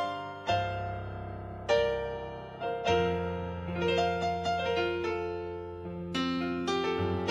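Solo instrumental music on a digital stage piano: slow chords struck about once a second, each ringing out over held bass notes.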